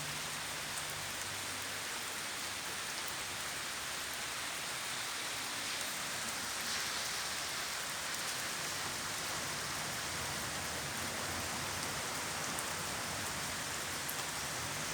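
Steady rain falling, an even hiss of raindrops on surfaces.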